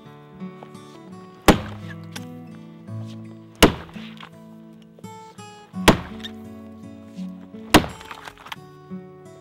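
Axe chopping into a log: four heavy strikes, about one every two seconds, each a sharp crack. Background music with sustained notes plays underneath.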